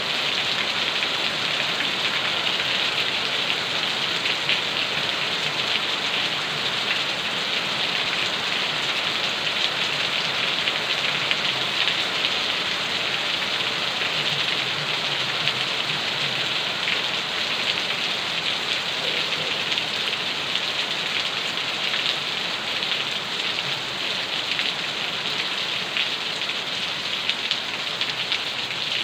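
Steady rain falling, a dense hiss with many small drop hits throughout.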